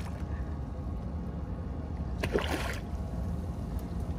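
Small fishing boat's engine running steadily at low revs, a constant low rumble, with a short burst of noise about two seconds in.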